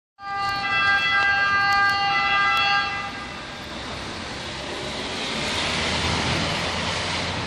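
A SEUS 118 medicalised ambulance's two-tone siren sounds loudly, stepping between two pitches, for about three seconds and then cuts off. A car then passes on the street, its noise swelling and fading.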